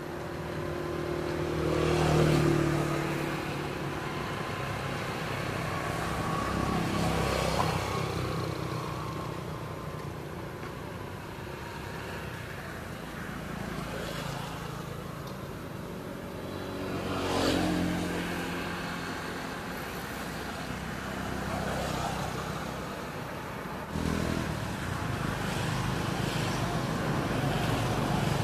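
Motor vehicles passing one after another, each engine swelling and fading over a few seconds, with a steadier engine sound near the end.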